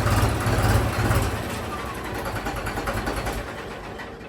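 Tractor diesel engine running with a low, pulsing beat, then dying away as it is switched off, the rumble fading over the last couple of seconds.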